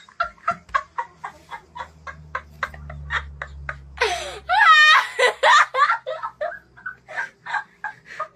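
A boy laughing hard in rapid, short bursts, breaking into a loud, high-pitched shriek of laughter about halfway through.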